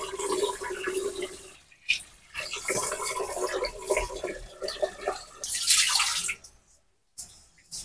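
Tap water running into a rice cooker's inner pot and splashing as a hand swirls the water inside it. The water sound stops a little after six seconds in, and a couple of short clicks follow near the end.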